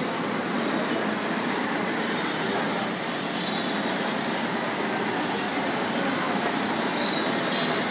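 Steady din of city street traffic, an even wash of noise with no single vehicle standing out.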